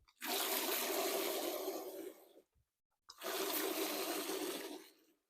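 Two pulls of a hand-pumped beer engine, each sending a rush of PBW cleaning solution gushing out of the spout that starts strong and tapers off over about two seconds; the line is being flushed after being left uncleaned.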